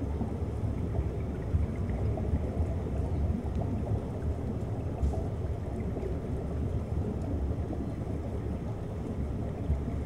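Underwater ambient sound of the sea picked up by a submerged camera microphone: a steady, churning low rumble of moving water and surge, with no distinct events.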